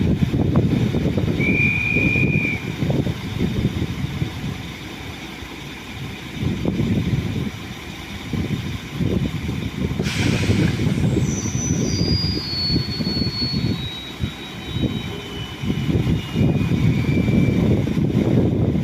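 Electric train running, with a low rumble throughout. About ten seconds in there is a sudden hiss, then a series of whining tones stepping down in pitch.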